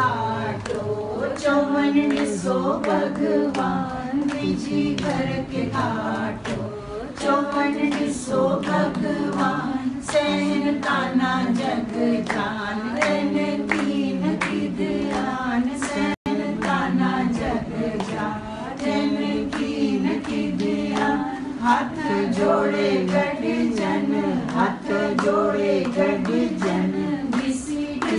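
A group of voices singing a devotional bhajan together without instruments, with hand-clapping keeping a steady beat. The sound cuts out for an instant about halfway through.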